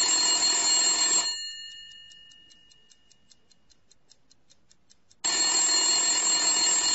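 Telephone bell ringing twice, each ring lasting about two seconds, with a pause of about four seconds between them. Faint quick ticks run through the pause.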